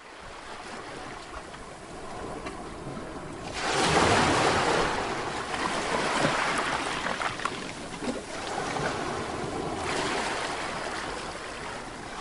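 Steady rushing noise with no clear pitch. It swells louder about three and a half seconds in and eases back near the tenth second.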